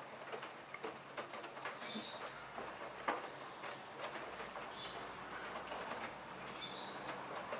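Hoover washing machine mid-wash, the drum turning a wet 9 kg laundry load: a running mix of small clicks, knocks and sloshing, with a short high hiss recurring every couple of seconds.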